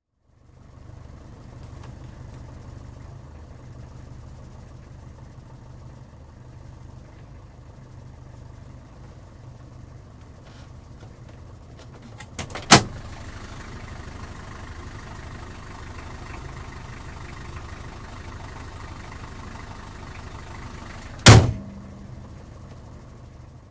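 Taxi engine ticking over at idle, heard from inside the cab as a steady low hum. About halfway through, a few light clicks come just before a car door slams shut; a second door slam follows near the end.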